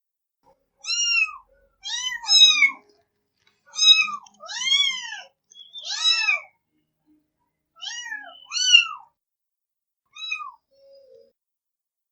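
A cat meowing: about nine short, high meows in a row, each rising then falling in pitch, with brief pauses between them.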